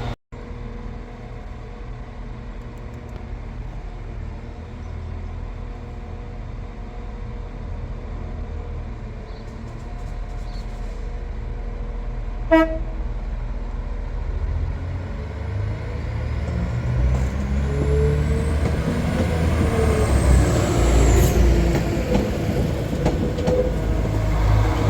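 Diesel passenger train running at the platform with a steady low rumble, a short toot about halfway through, then its engine note rising and growing louder over the last several seconds as it pulls away.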